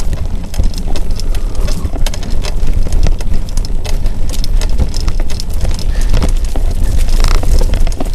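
Mountain bike riding fast over leaf-strewn dirt singletrack: a constant low rumble and buffeting, with a dense, irregular patter of clicks and rattles from the tyres on the trail and from the bike itself.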